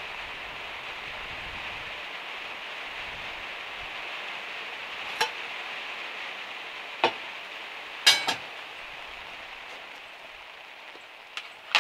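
Steady hiss of rain on the van's metal roof, fading toward the end, broken by a few sharp clinks and knocks of cookware being set down and handled on a portable gas stove, the loudest a double knock about eight seconds in.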